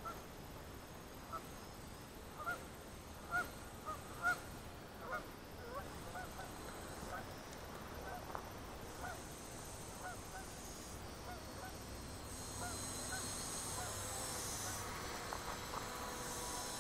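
A flock of geese honking, many short calls overlapping, loudest and thickest a few seconds in and thinning out later. Near the end a high steady hiss with a faint whine grows louder.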